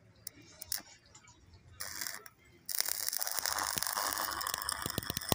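Stick (shielded metal arc) welding on a square steel tube: a few short scratches and a brief sputter as the electrode is struck, then about three seconds in the arc catches and burns with a steady, dense crackle.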